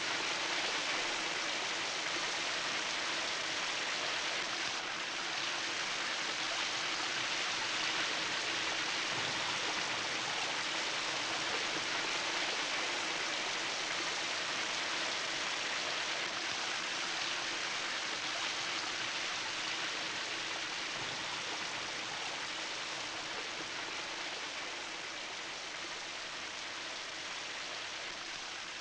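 A shower running: a steady spray of water hissing down, growing a little fainter over the last third.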